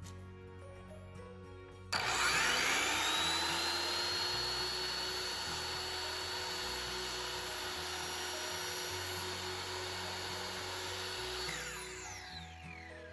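Electric power tool motor starting with a whine that rises to full speed, running steadily for about nine seconds, then winding down with a falling whine near the end; background music plays throughout.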